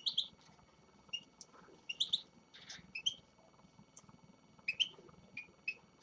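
Small caged finches chirping: about a dozen short, high call notes, coming singly or in quick pairs and threes at irregular intervals.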